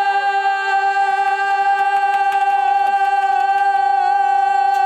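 Music: one long held note, steady in pitch and rich in overtones, with faint swooping sounds over it.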